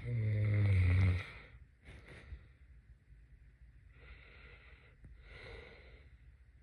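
Snoring in sleep: one loud, low, buzzing snore about a second long at the start, followed by softer, breathy breaths about two, four and five and a half seconds in.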